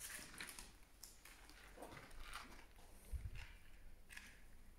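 Faint rustling and scratching of a long-pimple table tennis rubber sheet and plastic film being handled, with one soft low bump about three seconds in.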